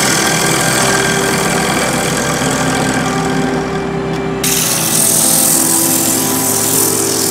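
A small benchtop wood lathe running steadily while a hand-held gouge cuts into a spinning oak blank. A little over four seconds in, the sound changes to a brighter hiss as sandpaper is held against the spinning wood.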